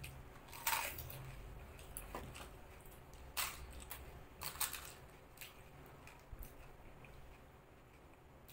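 A few sharp, crisp crunches of hollow fried puri shells (pani puri) being bitten, chewed and cracked open for filling, the loudest about a second in and the others a few seconds later.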